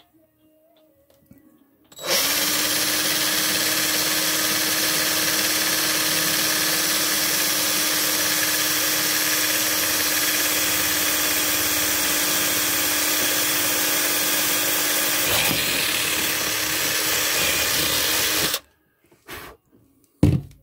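Cordless drill running a wood drill bit through a wooden wall panel: it starts about two seconds in, runs steadily with a constant motor whine for about sixteen seconds, then stops abruptly. A couple of short knocks follow near the end.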